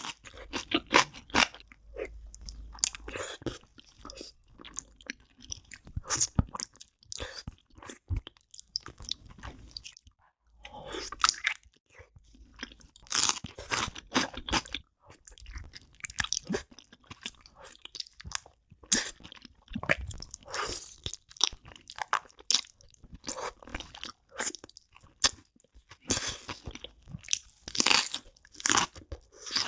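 A person chewing and biting into spicy braised beef feet, with irregular wet mouth clicks and bites that come thick and fast, easing off briefly about a third of the way in.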